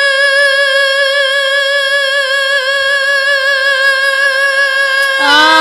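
A woman singing a ghazal unaccompanied, holding one long high note with a slight vibrato for about five seconds, then dropping into a new wavering melodic phrase near the end.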